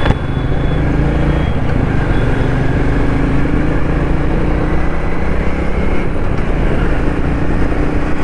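Royal Enfield Meteor 350's single-cylinder engine running under way, its note rising slowly over the first few seconds, with road and wind noise.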